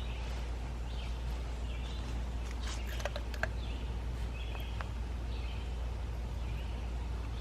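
A bird chirping repeatedly, about once a second, over a steady low rumble of outdoor background noise, with a few light clicks about three seconds in.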